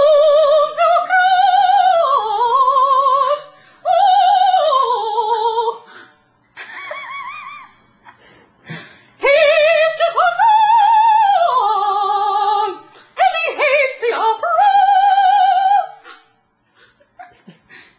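A woman singing opera-style with a heavy vibrato, in long held phrases that glide up and down in pitch, with short breaks between them. A fainter wavering sound fills one gap about seven seconds in.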